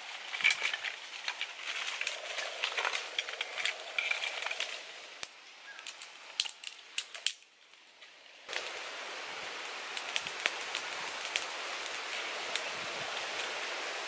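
Small twig fire crackling, with dry sticks snapping and sharp pops as they are broken and fed in. After about eight seconds this gives way to a steady hiss with only an occasional click.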